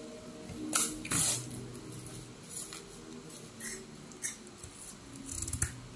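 A drinking-straw wrapper being torn open and slid off the straw: two short, louder rips about a second in, then light rustles and clicks.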